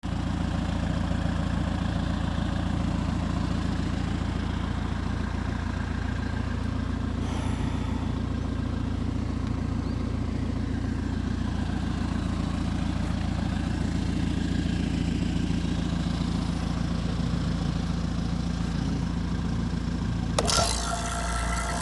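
Diesel engine of a Volvo EC55C mini excavator idling steadily. Near the end a brighter mechanical sound suddenly starts over it.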